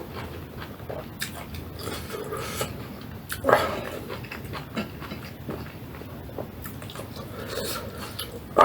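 Close-up chewing of rice with spinach, fried egg and fried potatoes, with scattered small clicks and smacks and a louder mouth sound about three and a half seconds in.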